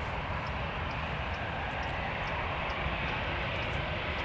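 Jet engines of an Airbus A320 running at low power as the airliner rolls slowly along the runway: a steady, distant rush that builds slightly.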